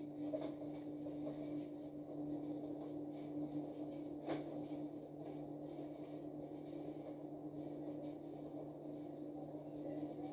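Steady low machine hum with a higher tone above it, in a quiet room, with a few faint clicks and one sharper click about four seconds in.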